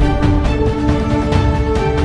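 Background music with sustained chords over a steady beat.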